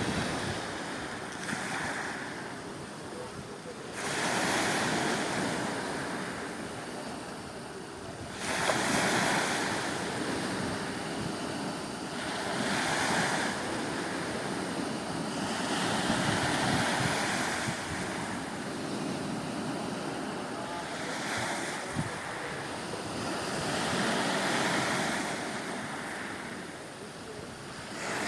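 Sea surf: waves breaking and washing in, swelling and fading every few seconds, with wind rumbling on the microphone.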